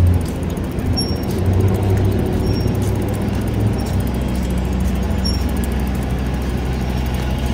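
Steady low rumble of city traffic, with buses idling at the curb, and a few faint clicks and short high tones.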